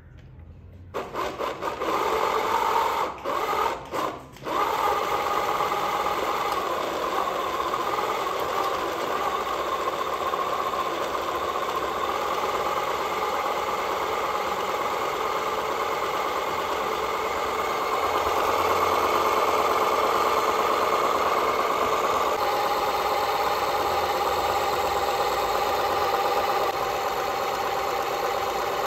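Toy remote-control car's small electric motor and gears whirring steadily as its wheels spin in place on concrete in a burnout. It starts about a second in, cuts in and out briefly at first, then runs on, louder for a few seconds past the middle.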